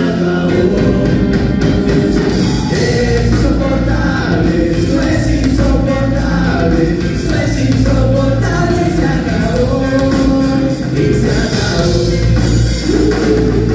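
Rock band playing live: singing over a loud, steady band with bass and a drum kit.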